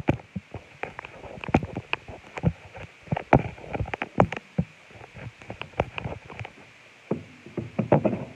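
Handling noise from a phone held close: irregular knocks, taps and rubbing on the microphone as it is moved about and gripped, in clusters with short gaps.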